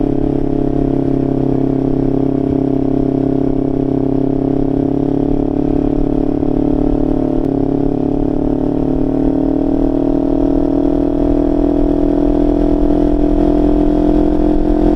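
Kawasaki Ninja 500's parallel-twin engine through an aftermarket Leo Vince LV Corsa exhaust, running steadily while riding. Its pitch eases down slowly, then rises a little near the end, over a low wind rumble.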